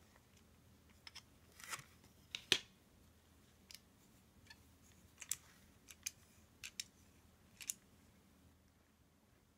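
Thin plastic clamshell packaging of a RAM module clicking and crackling as it is handled and turned over: a scattered string of short sharp clicks, the loudest about two and a half seconds in.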